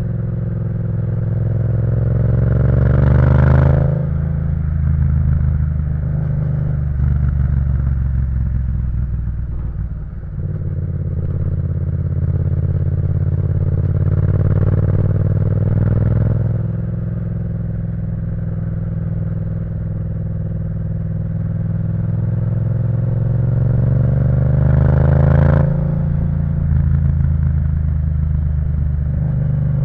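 Yamaha MT-07's 689 cc parallel-twin engine through an Akrapovic full exhaust system, under way. Revs climb and drop sharply with an upshift about four seconds in and again near the end, easing off for a moment about a third of the way through.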